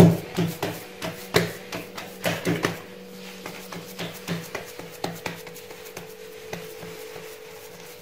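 Hands pressing and patting a date-filled semolina dough round on a granite countertop: a run of soft taps and knocks, close together for the first three seconds, then sparser and fainter.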